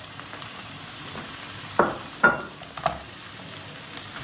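Chopped onion sizzling in hot oil with browned beef cubes in a frying pan. About two seconds in there are three sharp knocks from the wooden spoon against the pan.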